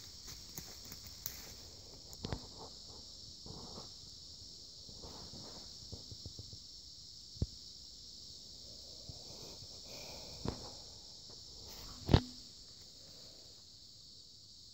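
Steady high-pitched insect chorus, with scattered clicks and knocks over it; the loudest is a sharp knock about twelve seconds in.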